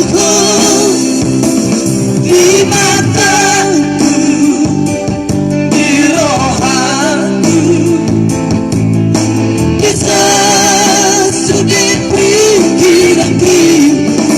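Vocal trio singing a Batak song in harmony, the voices wavering with vibrato, over instrumental backing.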